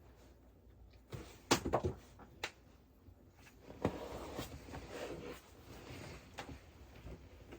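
Objects being handled at a desk: a few sharp knocks and clicks about a second in, then a few seconds of continuous rustling and shuffling.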